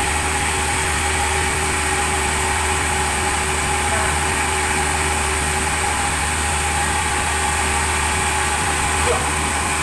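Sawmill machinery running steadily, a constant mechanical hum with a high whine on top and no change in pitch or load.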